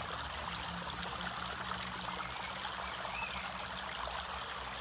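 Shallow creek running steadily over a stony, gravel bed, a constant trickling close at hand.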